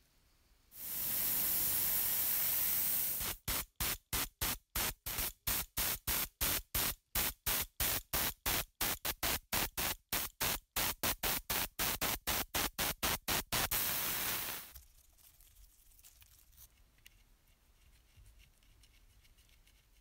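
Paint being sprayed onto a small metal part in a steady hiss, which then breaks into rapid short spurts of about three a second and finishes in one last steady hiss.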